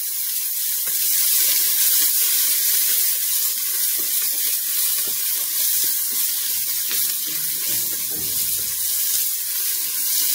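Olive oil sizzling with a steady hiss as sliced spring onions and garlic fry in a stainless steel pot. A wooden spoon stirs them, with a few soft knocks against the pot.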